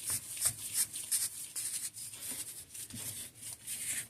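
Fox DPS rear shock's air can being twisted loose and slid off the damper body by hand: irregular rubbing and scraping strokes with a few small clicks.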